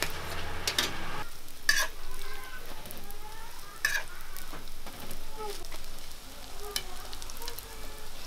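Sweet-pumpkin hotteok frying in oil on a flat griddle, sizzling steadily. Sharp metal clicks and scrapes come from the spatula and the round hotteok press striking the griddle, the loudest about two and four seconds in.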